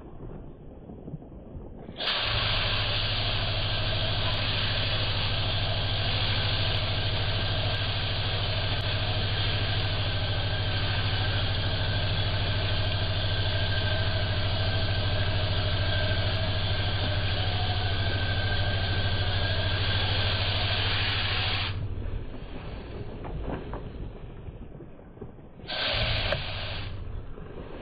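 An electric motor-driven machine runs with a steady hum and a loud hiss. It switches on about two seconds in and cuts off suddenly a few seconds before the end, then runs again briefly near the end.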